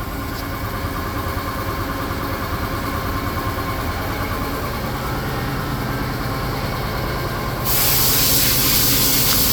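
Steady hum of running shop machinery with several held tones. About eight seconds in, a loud, even hiss starts suddenly and keeps going.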